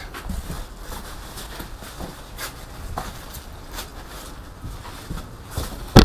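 Hands rustling bubble wrap and cardboard packaging around a heavy wrapped item in a box: irregular light crinkles and knocks, with one louder bump at the very end.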